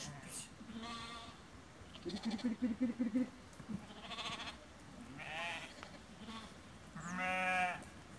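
A mixed flock of sheep and goats bleating in several separate calls: a low, pulsing bleat a couple of seconds in, and the loudest, a long bleat, near the end.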